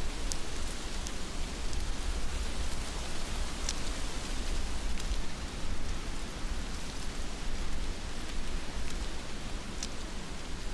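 Steady heavy rain falling, with a few sharp close drip taps scattered through it.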